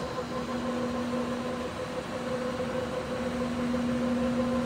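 OMP Prealpine NS-300 gap-bed lathe running with its spindle at its top speed of 800 rpm: a steady hum with an even tone through it. There is no knocking or grinding from the gearbox or spindle, a sign that the machine is in good condition.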